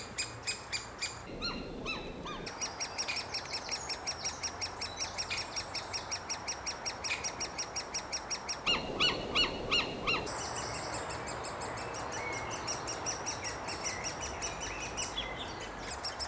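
Great spotted woodpecker chicks calling from the nest hole: a rapid, unbroken series of short high calls, about five a second. Twice the calls come louder and lower-pitched for about a second.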